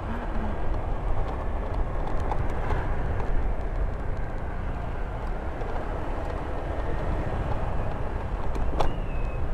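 Honda Vario 125 scooter's single-cylinder engine running at low speed, with wind rushing over the camera microphone. A short high tone comes in near the end.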